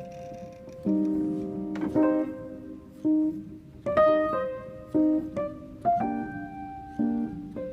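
Background piano music: slow chords and single notes struck about once a second.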